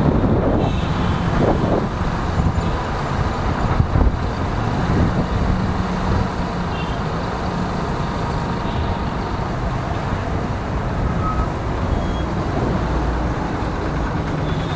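Motorcycle engine running steadily while riding through city traffic, with a short louder knock about four seconds in.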